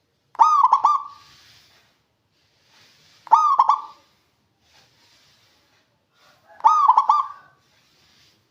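Zebra dove (perkutut) cooing: three short phrases about three seconds apart, each a quick run of a few ringing notes.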